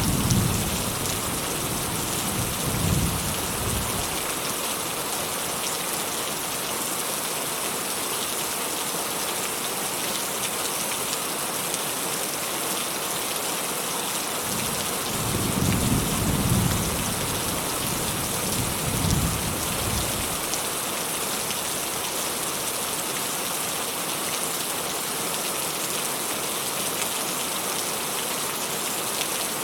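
Steady rain falling, with low rolls of distant thunder at the start and again about halfway through.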